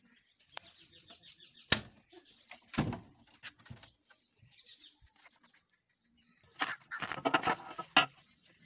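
Scattered light clicks and knocks of aluminium window parts being handled, with a short rattling clatter near the end.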